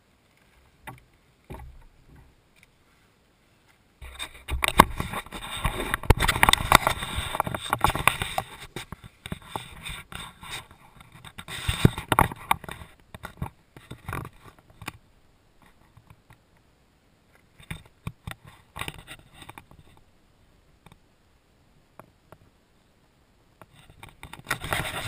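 Irregular crackling, rubbing and knocking noise on a motorcycle-mounted camera. It starts a few seconds in, is loudest for about ten seconds, then comes in scattered bursts.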